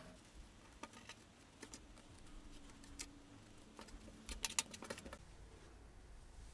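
Faint handling sounds of hands working fleece fabric pieces, with scattered small clicks and a short cluster of clicks about four and a half seconds in.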